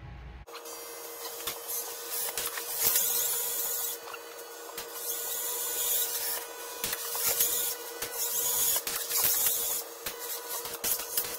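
A FIRST Robotics competition robot driving and working its pivot, elevator and gripper, played back at four times speed. Its motor whine and clatter come out raised in pitch as a steady high tone with a dense run of quick clicks, starting about half a second in.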